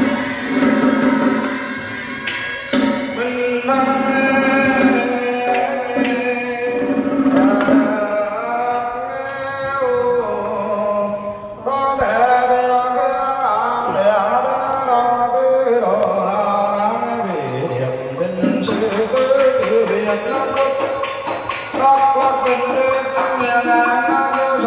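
Huế Buddhist ceremonial music (nhạc lễ): drum strokes under a sliding, ornamented melody line that runs on without a break.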